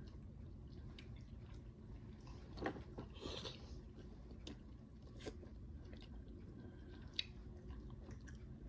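A person chewing a mouthful of soft fish quietly, with a few faint short clicks and smacks.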